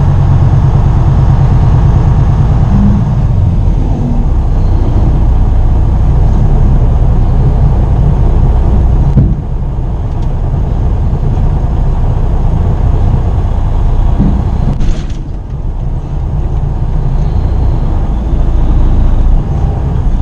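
Freightliner Cascadia semi-truck's diesel engine pulling at low speed, heard from inside the cab. The engine sound drops off abruptly about nine seconds in, and again briefly around fifteen seconds.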